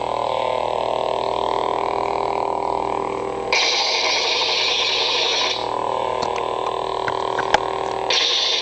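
Lightsaber hum from a Crystal Focus sound board, a steady electronic hum played through the hilt's speaker. It brightens twice into a couple of seconds of hiss, about three and a half seconds in and again near the end, as the saber is moved. A single sharp click comes about seven and a half seconds in.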